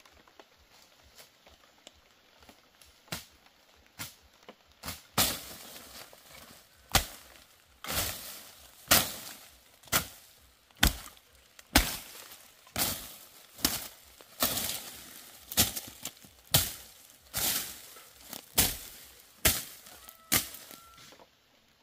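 Machete chopping into the forest floor, sharp strikes at about one a second. A few faint strikes come first, and the blows grow much louder from about five seconds in.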